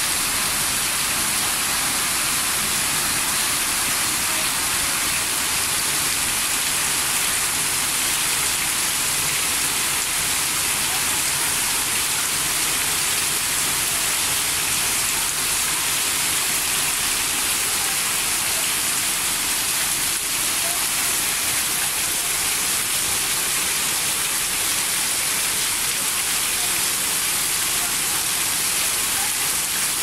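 Heavy rain pouring steadily onto pavement and puddles, a constant hiss.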